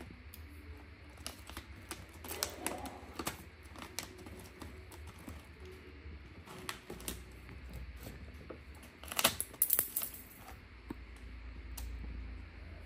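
Scattered small clicks and taps, with a louder cluster of crackly clicks about nine to ten seconds in: a baby macaque handling books and a packet on a wooden dresser.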